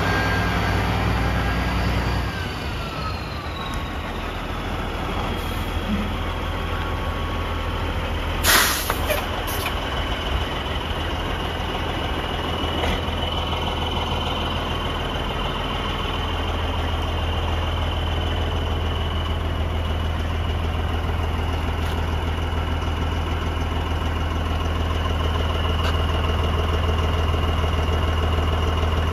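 Peterbilt 377 truck tractor's diesel engine idling steadily, with a whine that falls in pitch and settles in the first few seconds. A short, sharp hiss of released air about eight seconds in.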